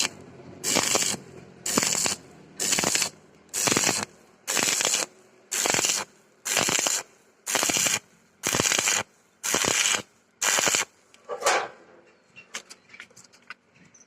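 A hand tool scraping on steel in regular strokes, about one rasping stroke a second, eleven or so in a row, stopping about three-quarters of the way through. A few light metallic clicks follow.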